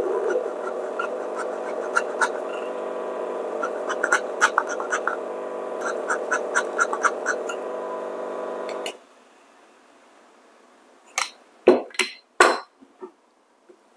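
DF64 64 mm flat-burr coffee grinder running empty with a steady motor hum while the bellows is pumped to puff out retained grounds, with a scatter of small ticks and taps. The motor cuts off suddenly about nine seconds in, and a few sharp clicks and knocks follow.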